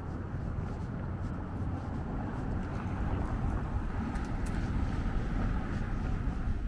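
Steady low engine rumble, with no clear changes.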